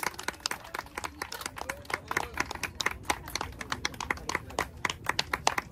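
Scattered applause from a small gathering of people, irregular claps throughout, with faint voices talking underneath.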